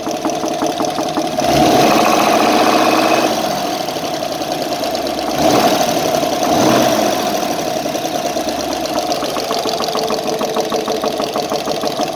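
GAZ-66 truck's ZMZ-66 V8 petrol engine running warm with a fast, regular knock, revved up briefly twice. The owner suspects a failed connecting-rod bearing on one of the front cylinders, after water got into the crankcase oil.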